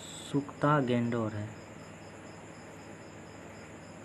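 A man's voice for about a second, a brief spoken sound, then low steady background hiss. A cricket's high trill cuts off just at the start.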